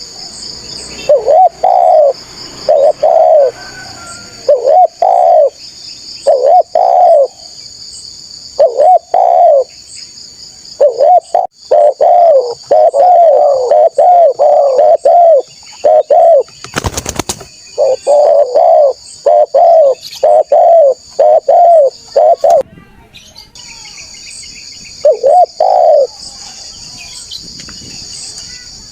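Spotted dove (tekukur) cooing over and over in quick runs of low, rolling coos, with a short pause near the end, over a steady high chirring of insects. About seventeen seconds in, a brief loud crackle cuts across the sound.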